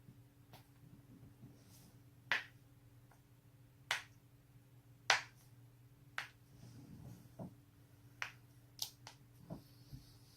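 Human joints being cracked: about ten separate, sharp pops spaced irregularly, roughly a second apart, the loudest about halfway through.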